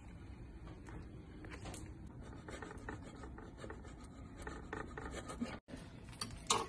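Faint, irregular scraping and rubbing of a metal utensil working over the glazed apple slices of a tart in a sheet pan, with one louder, sharper scrape near the end.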